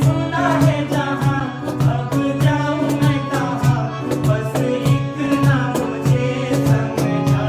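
Music: a Bollywood film-song ringtone with a steady beat under a melody.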